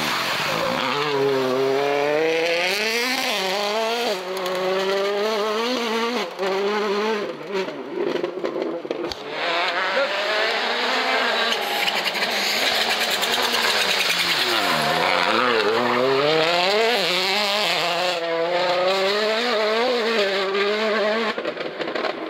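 Hyundai i20 Coupe WRC rally cars' turbocharged 1.6-litre four-cylinder engines revving hard through the bends, the pitch climbing and dropping sharply with each gear change. One pass ends about nine seconds in and a second car follows, its pitch dipping low once, then climbing again through a run of quick shifts.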